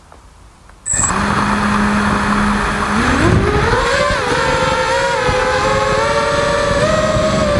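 ZMR X210 racing quadcopter's brushless motors and propellers, heard from its onboard camera. The sound starts suddenly about a second in with a steady low hum; about three seconds in the pitch rises into a motor whine as the throttle comes up, then wavers up and down with the flying.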